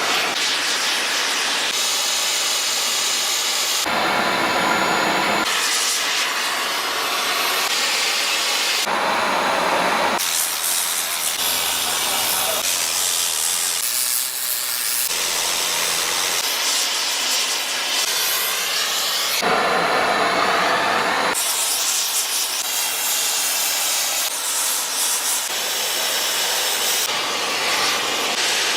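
Factory machinery and tools making steady hissing, grinding noise that changes abruptly every couple of seconds as one shot's sound cuts to the next.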